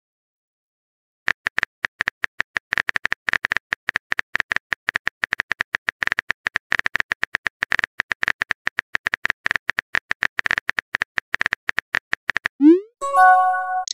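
Simulated phone keyboard typing sounds from a texting-story app: a rapid, even stream of key clicks for about eleven seconds. Near the end comes a short rising swoosh and a chime as the message is sent.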